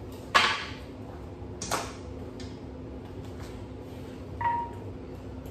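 Knocks and a clink of a pipe being worked loose and pulled from the top of a Subaru boxer engine: a sharp knock, a lighter knock about a second later, and a short ringing metallic ping near the end.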